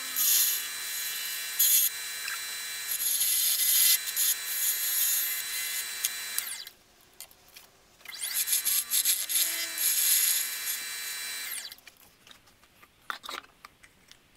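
Wood lathe running while a turning tool cuts the spinning wood, a loud hissing scrape. It breaks off about six seconds in and starts again. It stops about twelve seconds in, followed by a few light clicks.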